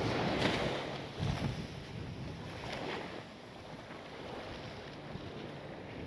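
Sea waves breaking and washing up on a sandy beach, with wind buffeting the microphone. The surf is loudest in the first second or so, then settles into a steadier wash.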